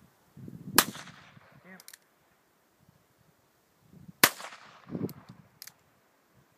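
Two handgun shots about three and a half seconds apart, each followed by a short echoing tail. A fainter sharp knock follows about a second after each shot.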